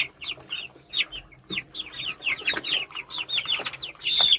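A brood of week-old broiler chicks peeping: a dense stream of short, high, falling chirps, several a second and overlapping, with the loudest one near the end.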